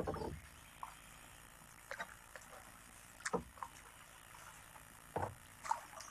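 Kayak paddle strokes: a series of short splashes and knocks from the paddle dipping into the water and touching the hull, five or six at uneven spacing.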